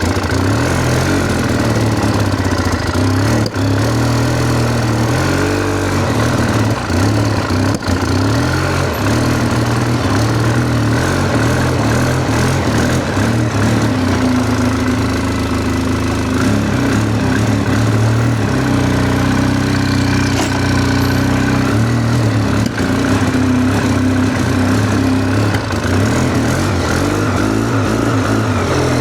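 An engine running steadily at idle, its pitch shifting slightly a few times.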